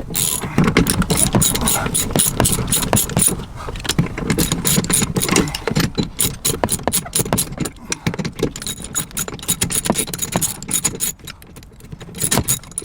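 Socket ratchet clicking in quick, uneven runs while a seat-belt anchor bolt is worked loose, with metal tool and bolt clatter.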